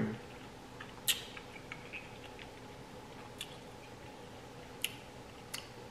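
A person chewing food quietly close to the microphone, with a few sharp, wet mouth clicks, the loudest about a second in.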